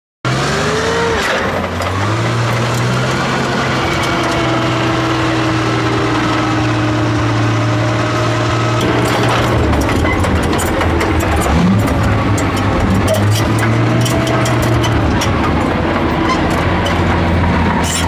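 A Tiger I tank on the move: its Maybach V12 petrol engine runs steadily under squeaking, gliding squeals from the steel tracks and running gear. Rapid metallic track clanking grows denser in the second half.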